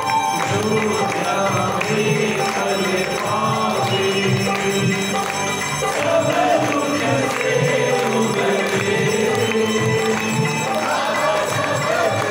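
Temple aarti: voices singing a devotional hymn over continuous ringing bells and jingling hand percussion.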